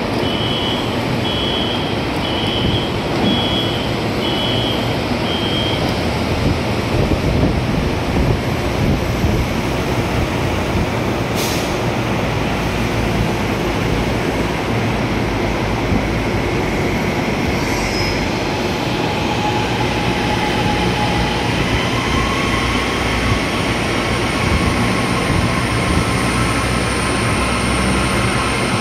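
CSR Zhuzhou six-car LRT train approaching an elevated station platform, its whine growing in the last third over a steady rushing background. A run of six short high beeps sounds in the first few seconds.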